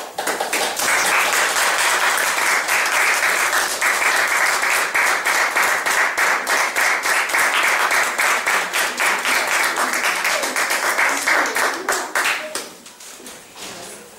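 Audience applauding: dense, even clapping that thins out to a few scattered claps about twelve and a half seconds in.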